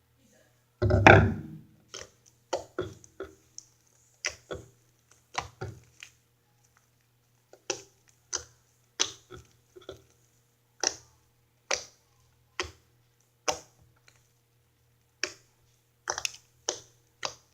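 Sticky Elmer's glitter-glue slime being kneaded and squeezed by hand: a series of short, separate squelches and pops, one every half second to a second. A louder, fuller thump about a second in.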